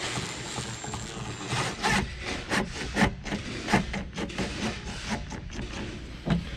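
Cordless drill briefly running, driving a small self-tapping screw into the Jeep's plastic roll-bar trim, with a thin high motor whine. After it stops, the screw is turned the rest of the way by hand in a series of short irregular strokes, about two a second.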